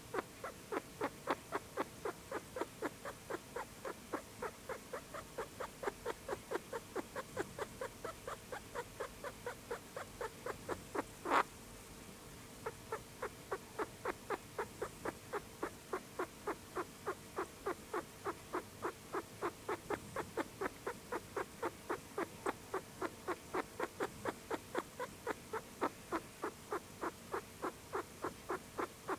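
Sick pet rat making a repeated, short, clicking noise, about three a second. The noise stops briefly after one louder click about eleven seconds in, then starts again.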